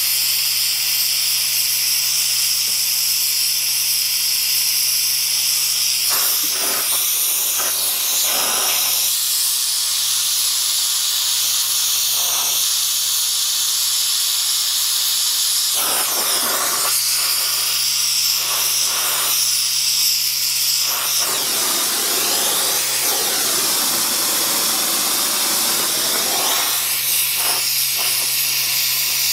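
Hand-held gas torch burning with a steady hissing rush as its flame is played along a clamped steel frame plate to heat it and relieve the stress that has bent it. The rush thickens for a few seconds past the middle.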